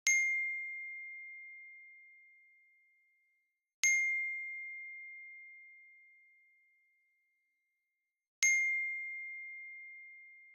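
A bell-like electronic ding, the same single high note struck three times a few seconds apart, each ringing out and fading over about three seconds: a GarageBand recreation of an Apple notification sound.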